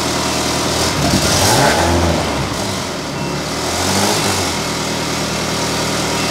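Ferrari V8 engine in an Alfa Romeo 105 idling cold at about 1200 RPM, just after starting. Its note swells up and settles back twice in the first few seconds.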